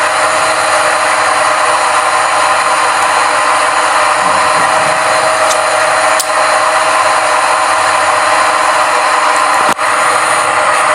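CNC lathe machining sound during the finishing pass: a steady machine hum with hiss.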